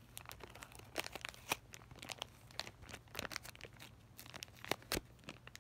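A packet of alcohol hand-sanitizer wipes crinkling and rustling as it is handled, in many short, sharp crackles.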